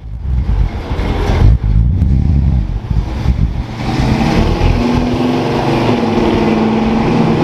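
Muscle car engine driving past. A loud, uneven rumble with a surge of revs in the first couple of seconds settles into a steady drone from about four seconds in.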